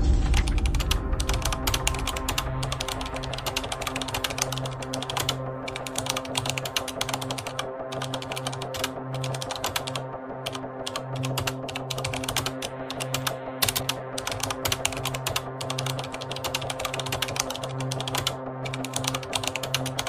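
Typewriter sound effect: rapid key clacks that pause now and then, over steady background music with a low, slowly pulsing drone.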